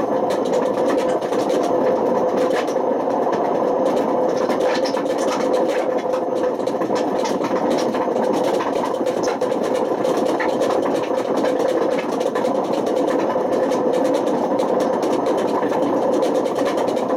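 Panasonic NA127VB6 washing machine running with failed drum bearings: a loud, steady mechanical noise with one constant tone through it and scattered small clicks.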